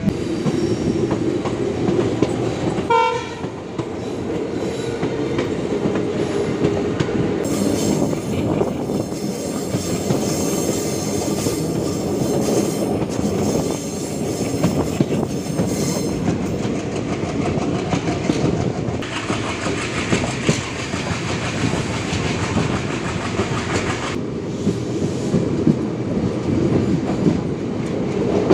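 WDG diesel locomotive chugging as it hauls the train, heard from the second coach, with the clickety-clack of the coach wheels over the rail joints. A short horn note sounds about three seconds in.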